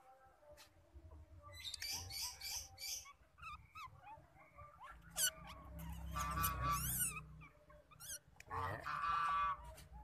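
Otters making a string of short, high-pitched squeaks and chirps. A rapid run of chirps comes about six to seven seconds in, and a longer squealing call near the end.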